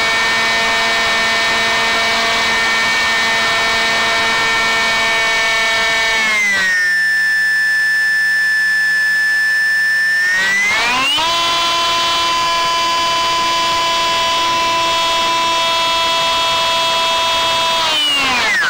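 ParkZone Stryker's electric motor and pusher propeller whining in flight, the pitch changing in steps with the throttle. It holds steady, drops to a lower note about six seconds in, climbs back higher about four seconds later, then glides down near the end as the throttle comes off.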